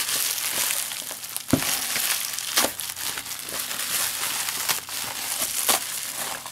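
Plastic shipping mailer bag crinkling and rustling as hands twist and pull it open, with a few sharper crackles.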